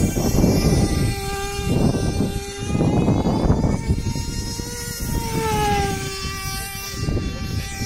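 Small RC delta-wing model plane's motor and propeller whining overhead, the pitch falling as it passes, near the start and again about five seconds in. Gusts of wind rumble on the microphone.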